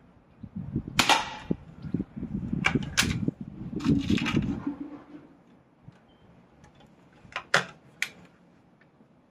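Weihrauch HW99S .177 break-barrel spring-piston air rifle being fired and handled: a string of sharp cracks and clicks, the loudest about a second in and another cluster near the end, over a low rumble in the first half.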